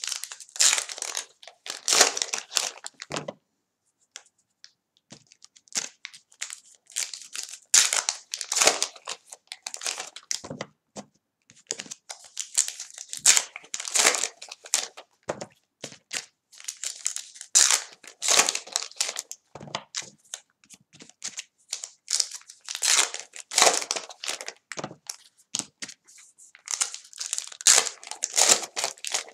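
Trading-card pack wrappers being torn open and crumpled, in repeated bursts of crinkling and tearing with short pauses between.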